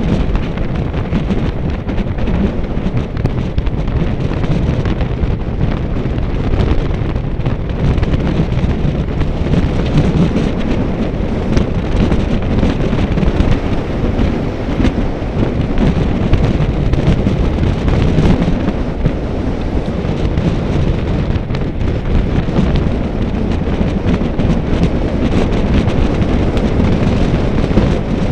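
Loud, steady low rumble of wind buffeting the microphone, without a break.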